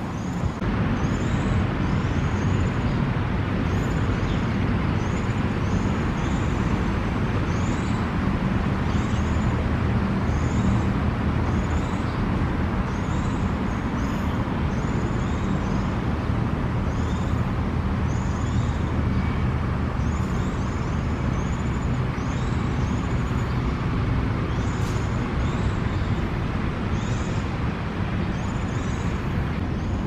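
Steady road-traffic rumble, with short high chirps repeating about once or twice a second over it.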